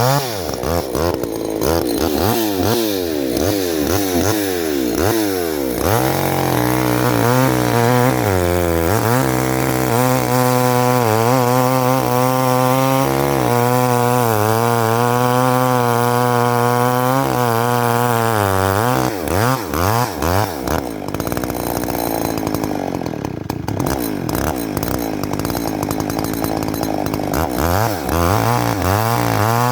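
Two-stroke chainsaw running at high revs and cutting into a tree, its engine note dipping and recovering again and again as the chain loads in the wood, with longer drops in pitch in the second half.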